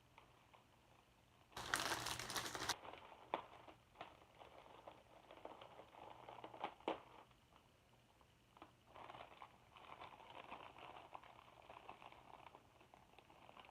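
A mail package being opened by hand. There is a loud rip about two seconds in, then scattered crinkling and rustling of the packaging.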